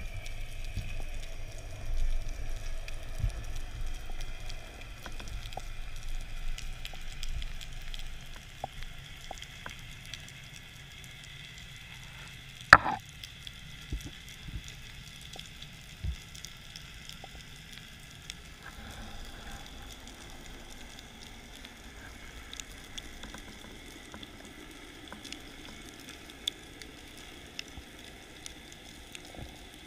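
Underwater sound picked up through a diving camera's housing: a steady faint crackle of scattered clicks, with a low rush of moving water during the first several seconds, and one sharp knock about a third of the way through.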